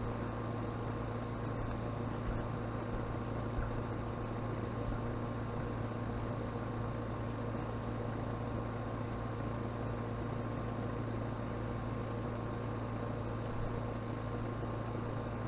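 A steady low mechanical hum holding several fixed tones, with a few faint high ticks.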